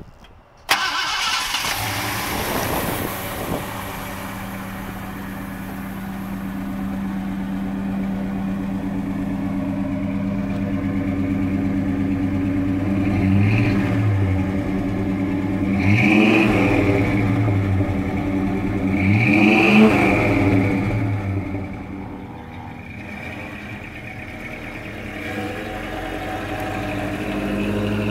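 Ford 390 V8 of a 1964 Thunderbird starting about a second in and settling into an idle. It is blipped three times, rising and falling each time, then drops back to a lower idle.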